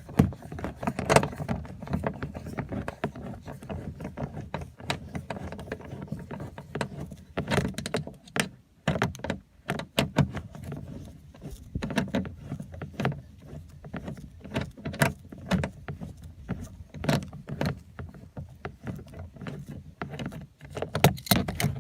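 A 7 mm socket driven by a screwdriver, clinking and scraping on a screw as it is backed out of a pickup's plastic door panel: irregular sharp clicks and knocks.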